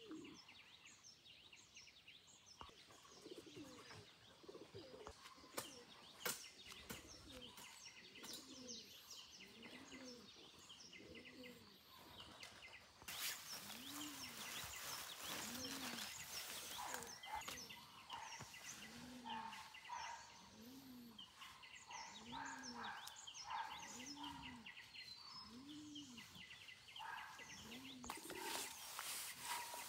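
Faint birdsong: one bird gives low, rising-and-falling coos, about one a second, while smaller birds chirp high above it.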